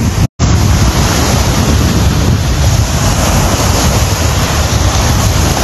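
Strong wind buffeting the phone's microphone as a loud, steady rumbling rush, mixed with waves breaking on the shore. The audio drops out for a split second just after the start.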